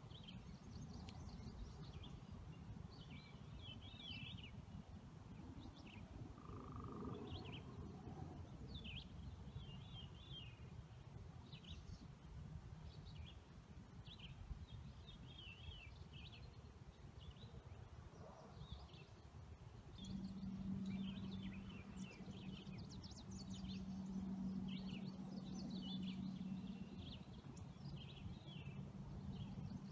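Many small birds chirping and twittering over a steady low rumble, with a low steady hum coming in about two-thirds of the way through.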